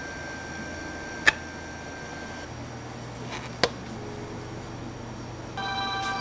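Two sharp plastic clicks about two seconds apart, the first the louder, as a bottom-dispensing tea maker and a lidded paper takeaway cup are handled on a counter, over a steady low hum. Near the end a chord of several steady electronic tones starts.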